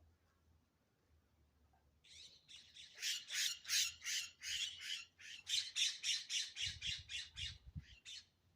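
A bird squawking in a long, rapid series of harsh calls, about three or four a second. The calls start about two seconds in and stop shortly before the end, with a low rumble of wind or handling on the microphone near the end.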